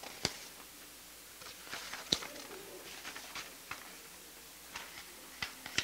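Quiet rustling of paper sheets and book pages being handled at a lectern, broken by a few sharp taps. The loudest tap comes about two seconds in, and others come just after the start and near the end.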